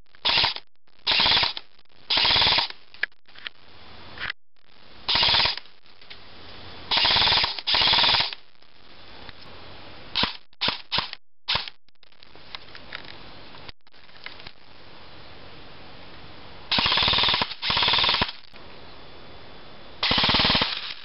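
Homemade airsoft gun built from spare parts firing about ten short automatic bursts, each under a second, with a few brief single shots about ten seconds in.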